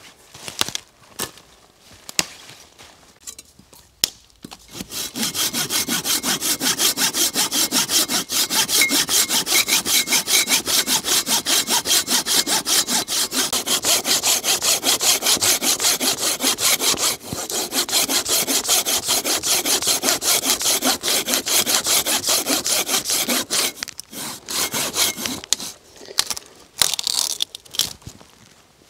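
A hand saw cutting through a thin green branch in steady, even back-and-forth strokes, with a short break partway through. Before the sawing starts there are footsteps and rustling in dry leaf litter, and after it stops there is more rustling and small snaps.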